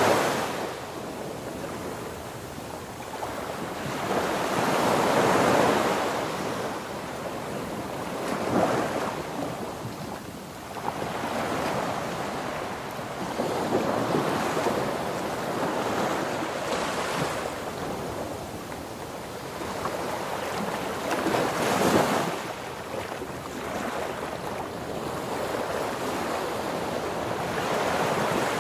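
Wind buffeting the microphone and water rushing past the hull of a moving boat, a steady rushing noise that swells and fades every few seconds.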